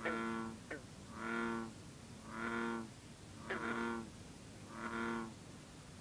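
Frog chorus in a marsh: a green frog's short, sharp twanging calls that drop steeply in pitch, heard three times, between a series of four deeper, steady droning calls about a second apart, typical of bullfrogs.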